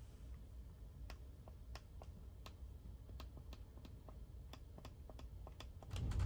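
Steady low rumble of a moving sleeper train, with irregular sharp clicks and ticks, about two a second, scattered through it.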